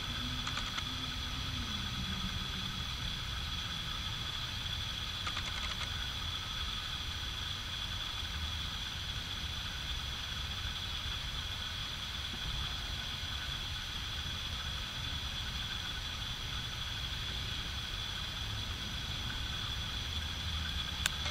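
Steady low hum with a constant thin, high-pitched whine above it.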